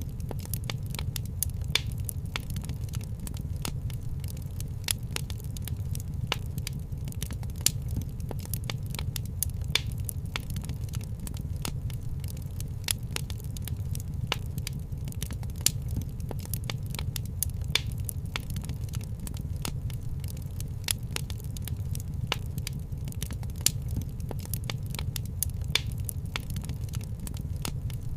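Wood fire crackling in a fireplace: frequent irregular pops and snaps over a steady low rumble.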